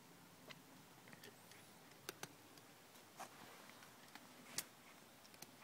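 Near silence, broken by faint, scattered small clicks and ticks of a cat eating wet food from a metal bowl, about eight in all, the loudest a little past the middle.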